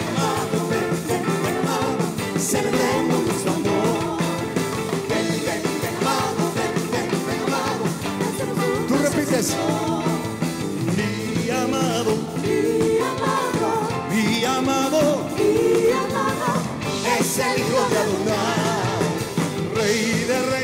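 Live Christian praise band playing, with voices singing over it.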